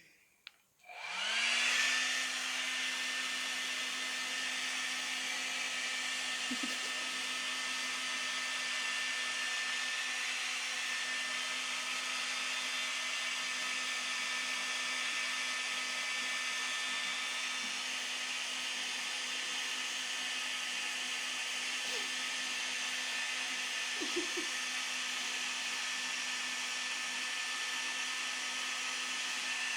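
Handheld electric hair dryer switched on about a second in, its motor spinning up and then blowing with a steady whir.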